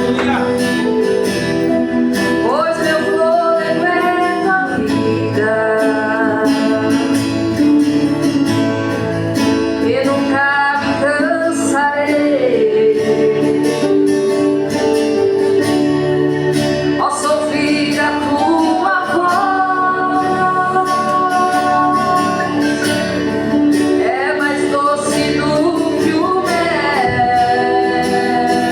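A man and a woman singing a song together, accompanied by guitar.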